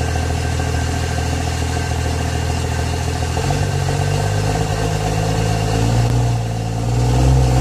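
A vehicle engine running steadily, then going to a heavier, stronger note about three and a half seconds in, as if revved or put under load.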